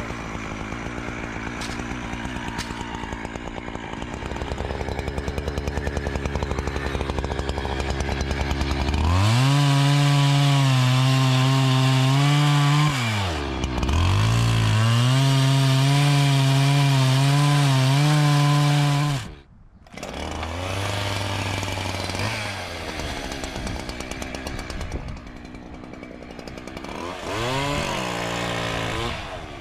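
Chainsaw running: at low revs for the first several seconds, then opened up to full throttle for about ten seconds with a brief dip in revs, before it drops away sharply. It runs on at lower revs and revs up again near the end.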